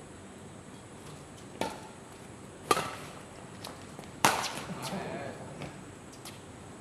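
Badminton rally: three sharp racket-on-shuttlecock hits, the second and third the loudest, about a second and a half apart.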